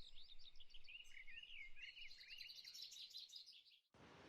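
Faint songbird singing: quick chirps and slurred, up-and-down whistled notes, busiest in the middle, cutting off abruptly near the end and giving way to a steady hiss.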